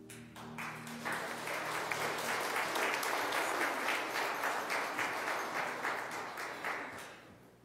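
A church congregation clapping, starting about half a second in and tapering off near the end, with the last held notes of the song fading under it at the start.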